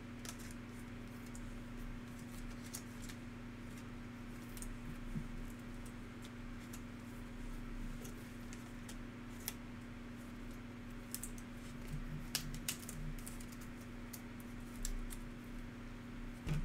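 Trading cards handled and laid down on a table mat: scattered light clicks and taps, a few more together about two-thirds of the way through, over a steady low hum.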